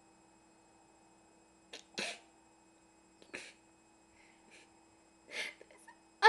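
A girl's stifled laughter: a string of short breathy bursts through nose and mouth, the last and loudest near the end breaking into voice.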